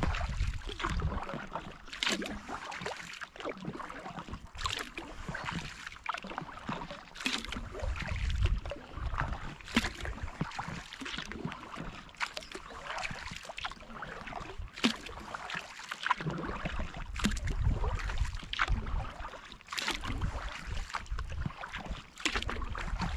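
Kayak paddle strokes on calm lake water: the blades dip and splash in a steady rhythm about every one to two seconds, with water dripping off between strokes. A low rumble comes in near the start and again towards the end.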